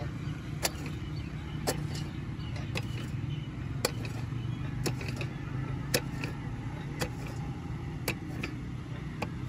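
Hand hoe chopping into hard, stony dry ground about once a second while a small hole is dug, each stroke a sharp thud and scrape of soil, over a steady low hum.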